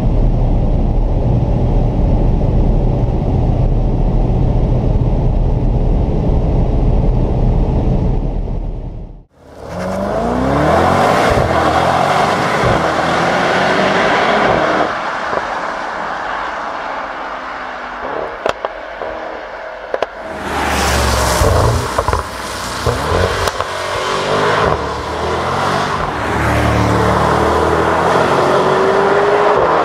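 Mercedes-AMG GT 63 S at close to 300 km/h, heard inside the cabin: a steady loud drone of its twin-turbocharged 4.0-litre V8 mixed with wind and tyre noise. About nine seconds in this cuts to the same car heard from the roadside, its V8 pulling through rising upshifts. About twenty seconds in it goes by loudly and then accelerates again.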